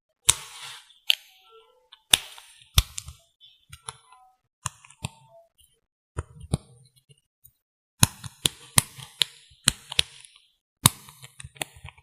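Irregular sharp clicks and taps, some with a brief rustling tail, from makeup items and cases handled close to the microphone.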